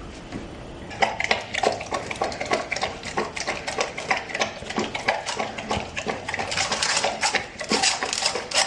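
A pet lapping milk from a dish: a quick, even run of wet licks that starts about a second in.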